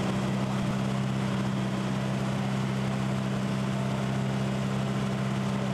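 Engine of a motorized outrigger boat running steadily at a constant speed under way, a continuous low hum.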